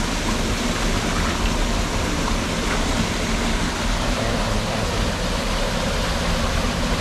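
Steady rushing of falling water from a waterfall, an even noise that does not change.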